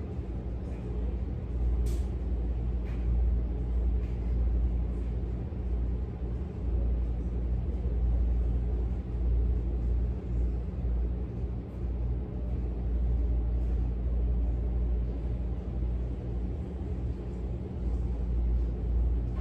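Steady low rumble with a constant hum over it, and a few faint clicks about two and three seconds in.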